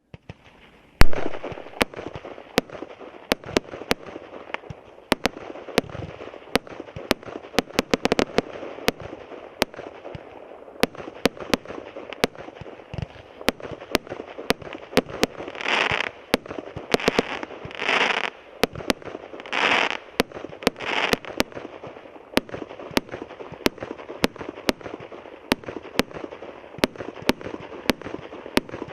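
Mixed-calibre, fan-shaped 100-shot firework cake firing: a loud first shot about a second in, then sharp shots roughly two a second over steady crackling. Around the middle, several longer half-second crackling bursts come in among the shots.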